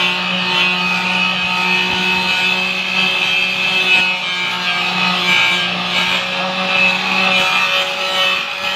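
Angle grinder running steadily under load against the sheet-metal body of the van: a constant motor whine with a harsh grinding rasp on top.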